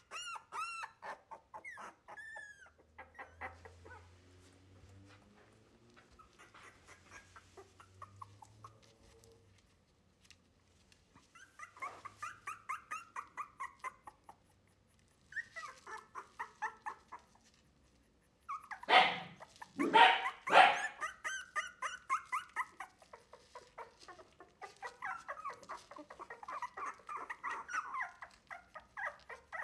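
Three-week-old wire-haired miniature dachshund puppies whining and squeaking in runs of short, high-pitched cries, with two much louder cries a little past the middle. The pups are fussing at being put to a bowl of milk instead of nursing from their mother.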